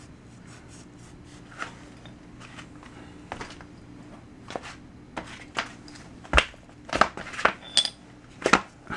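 Scattered metallic clinks and clatter of hand tools and small metal parts being handled, sparse at first, then louder and closer together over the last few seconds.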